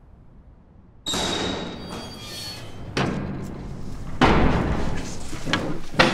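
A door bangs suddenly about a second in with a brief metallic ring, followed by more knocks and thuds, then chairs shifting as people get up near the end.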